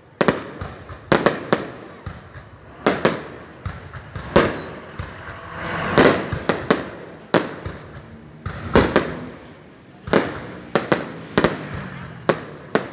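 Fireworks going off: an irregular run of a dozen or more sharp bangs in quick succession, each trailing off in a short echo.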